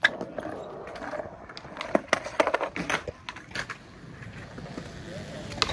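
Skateboards rolling on concrete, with a string of sharp clacks as boards strike the ground.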